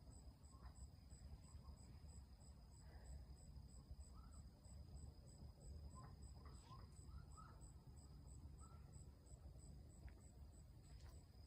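Faint cricket chirping at night, evenly about three chirps a second, over a constant high whine and low hum. A few faint short calls come in the middle.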